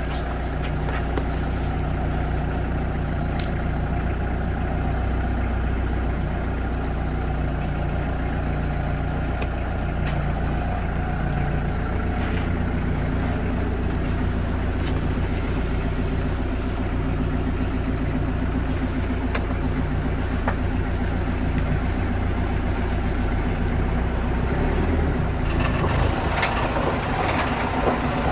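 Safari vehicle's engine idling steadily, a low continuous hum, with some added noise near the end.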